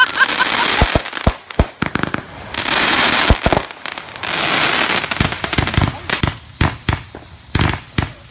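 Consumer fireworks going off in quick succession: sharp bangs and the crackling hiss of aerial bursts, then from about five seconds in a rapid string of shrill whistles mixed with pops as whistling fireworks shoot up.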